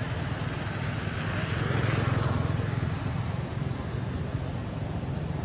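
An engine drones steadily, swelling a little about two seconds in and then easing.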